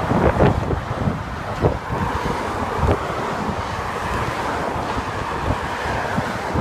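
Wind blowing on the microphone in uneven gusts while cycling, over the steady hiss and hum of car traffic passing in the lanes alongside.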